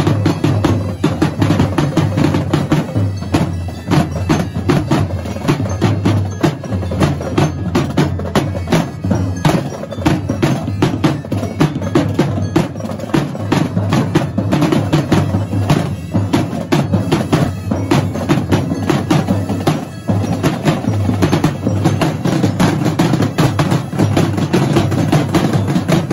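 Massed marching snare drums of a drum and bugle corps drumline playing a fast, dense rhythm without a break, with deeper drum strokes underneath.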